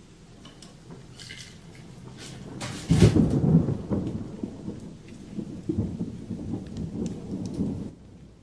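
Thunder: a low rumble builds, a loud crack comes about three seconds in, and a rolling rumble follows before cutting off abruptly near the end.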